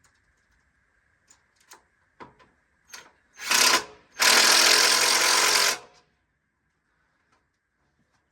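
Cordless power drill running in two bursts, a short one and then a longer one of about a second and a half, driving a screw into the Polywood rocking chair parts while stopping short of fully tightening it. A few light clicks of handling come before.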